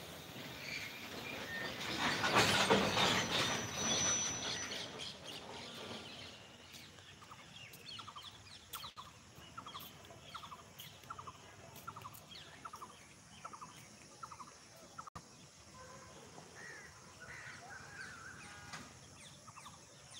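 Goods train wagons rolling past on the rails: a loud rush of noise about two to five seconds in, then a regular series of short, rattling chirps, about one and a half a second, over a low background.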